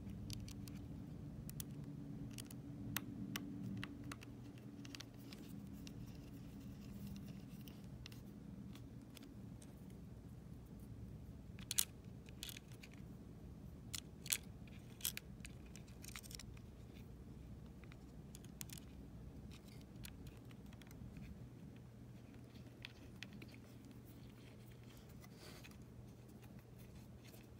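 Faint, scattered small metallic clicks and taps of a small screwdriver and screws being worked into an Apple TV's case, with two louder clicks about halfway through. A low steady hum underneath.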